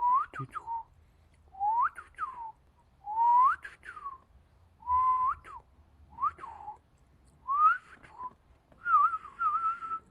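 Short whistles gliding up and down, repeated in pairs roughly every one to one and a half seconds. They end in a longer, wavering whistle.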